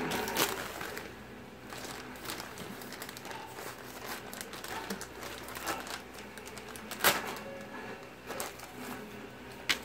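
A knife cutting open a shipping package, with the packaging rustling and crinkling and a few sharp clicks, the loudest about seven seconds in.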